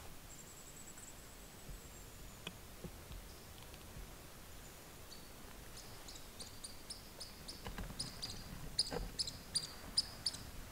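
Faint outdoor ambience. A thin high whistle sounds early on, then short high chirps repeat about three times a second, growing a little louder toward the end. A few faint knocks sound among them.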